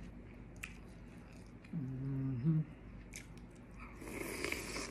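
A person biting into boiled corn on the cob, with crisp crunching about four seconds in. Before it comes a short hummed "mmm" about two seconds in, and a few soft mouth clicks.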